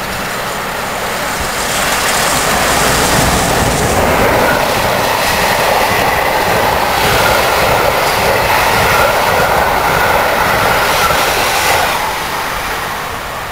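Steam-hauled passenger train going by: the new-build A1 Pacific steam locomotive and its coaches, wheels rolling on the rails. The noise swells about two seconds in, holds with a faint high whine over it, and dies away about twelve seconds in as the last coach passes.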